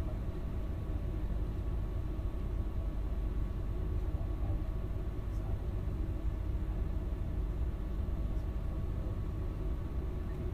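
Steady low rumble of outdoor background noise, without a break or distinct event.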